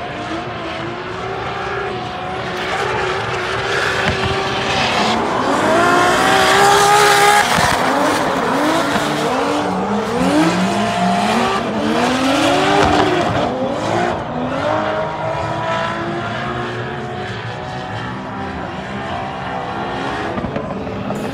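Two drift cars in a tandem run, their engines revving up and down hard as they slide sideways, with tyres squealing under a steady hiss. The run is loudest about six to eight seconds in, with another peak near thirteen seconds.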